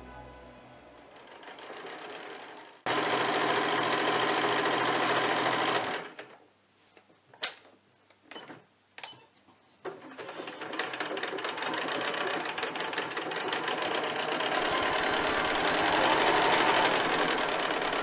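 Electric household sewing machine stitching fabric in two runs. A fast, even rattle of stitches starts suddenly about three seconds in and lasts about three seconds. A pause follows with a few light clicks. Then a longer run of stitching goes on to the end.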